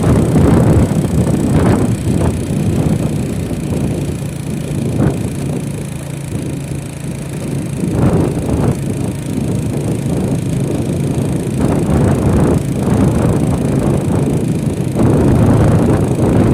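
Wind buffeting the microphone over a vehicle's engine running, as on the move; the level rises and falls without stopping.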